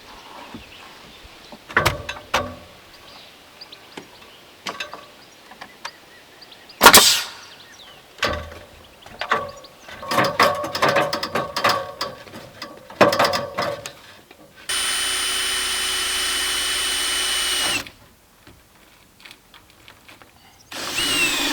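Carpentry work on a wooden barge board: scattered knocks and clatter of wood and tools, with one sharp loud knock about a third of the way in. Near the middle-to-late part, a power tool runs steadily for about three seconds and then stops suddenly.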